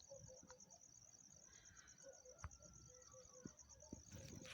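Near silence with faint, rapidly pulsing high-pitched cricket chirping and a few soft clicks.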